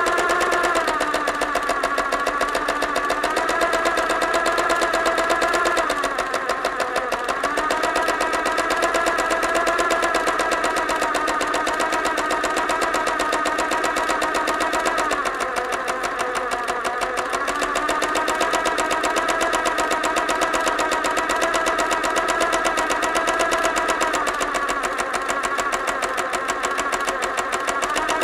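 Sewing machine running continuously, stitching in a fast, even clatter over a motor whine. The whine dips in pitch a few times, then comes back up as the machine slows and speeds up again.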